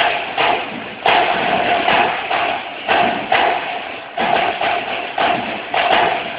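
A group of drummers playing live together: a driving pattern of sharp, ringing drum strikes, two or three a second, in an uneven groove.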